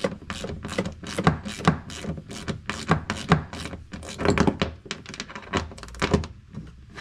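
Hand socket ratchet clicking in quick, irregular strokes as the fuel pump flange bolts are run down into the tank's metal nuts, stopping shortly before the end.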